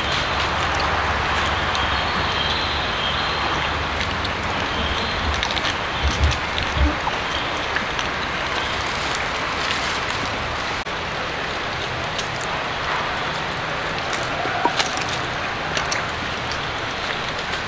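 Steady hiss of outdoor background noise, with a few low bumps about six seconds in.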